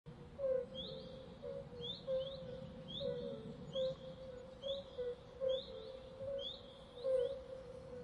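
Forest swamp ambience: short, high, upward-sweeping chirps repeat roughly once a second, sometimes in quick pairs, over a steadier lower call and a faint low background noise.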